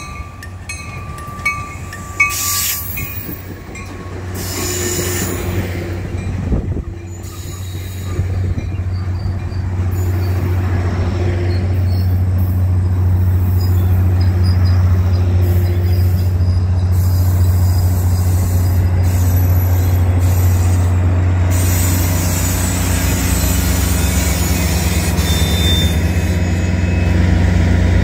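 Caltrain bilevel commuter train arriving along the platform: a deep steady hum and rumble that grows louder over the first ten seconds as the cars roll past, with faint high wheel squeal, then staying loud as the train slows to a stop.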